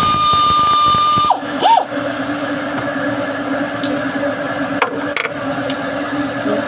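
A power tool whirs up to a steady high whine, holds it for about a second, spins down, then gives one short burst. A steady mechanical hum runs underneath, with two sharp clicks about five seconds in.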